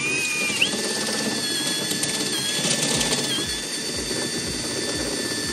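Cordless drill running at slow speed, driving a step drill bit through the thin sheet metal of a car door: a steady motor whine over the grinding of the cut, stepping up in pitch a little before a second in. In the second half a faint low knock repeats about two to three times a second.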